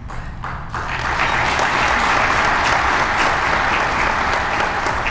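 Audience applauding in a hall: a steady wash of many hands clapping that swells in about a second in and holds.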